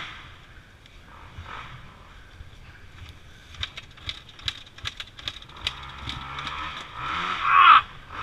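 Knocks and scrapes of a dirt bike being wrestled by hand in a muddy rut: a quick run of sharp clicks and knocks through the middle, then a louder drawn-out strained sound near the end.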